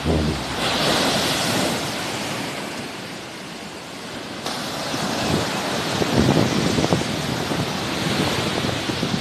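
Sea waves washing onto the shore in a steady hiss that swells about a second in, eases off through the middle and builds again, with wind gusting on the microphone.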